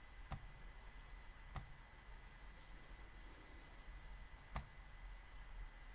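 Near silence: low room hum and a faint steady high tone, broken by three short, soft clicks spread over the few seconds.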